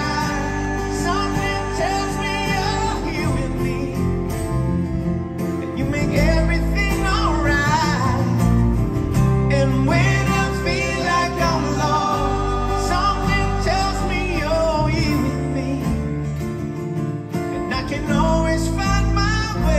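Live band performing a ballad: a male lead singer over strummed acoustic guitars and electric bass, heard from the audience in a concert hall.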